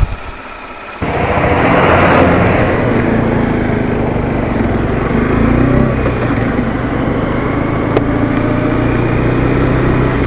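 Bajaj Dominar 400's single-cylinder engine running as the motorcycle rides along, with a steady hum under heavy wind and road noise. It gets suddenly much louder about a second in and stays level after that.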